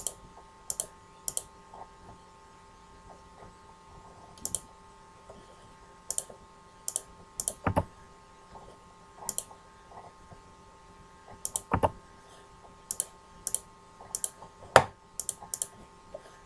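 Computer mouse buttons clicking: short, sharp clicks at irregular intervals, often in quick pairs, with three duller, heavier knocks among them.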